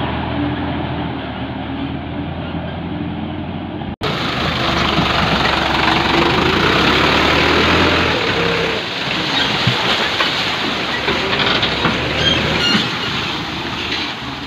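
Sonalika tractor's diesel engine running hard under load while pulling a loaded trolley through mud. The sound breaks off sharply about four seconds in and resumes with a rising engine note.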